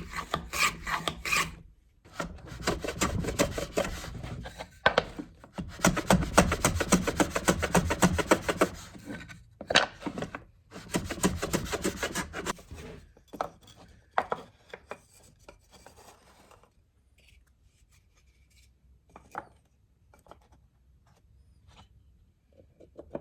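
Plow plane set to cut out to the edge, shaving a rebate along an elm board: four or five long rasping strokes, each lasting a couple of seconds or more. The cutting stops about 13 seconds in, followed by a few light knocks and taps.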